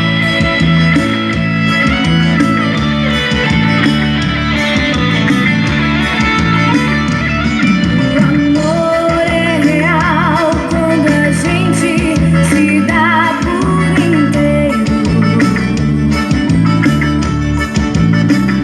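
Music with guitar over a steady, repeating bass line; about nine seconds in, a wavering melody line comes in for a few seconds.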